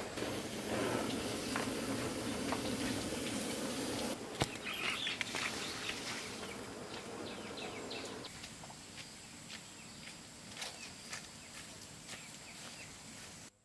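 Insects buzzing, with many faint scattered clicks; the sound cuts off abruptly near the end.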